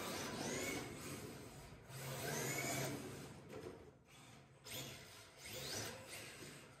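Electric RC drift cars' motors whining as they accelerate, in three rising swells, with their tyres scrubbing and sliding over the carpet track.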